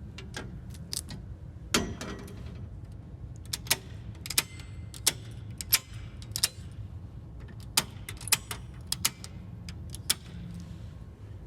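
Dishes and cutlery clinking and knocking together as they are put away: a string of sharp clinks at irregular intervals, the loudest about two seconds in, over a steady low hum.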